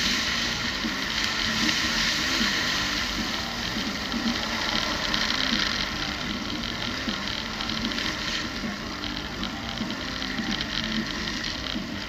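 A vehicle's engine running as it drives slowly along a sandy beach, with a wavering low engine note under a steady rushing hiss of wind and surf.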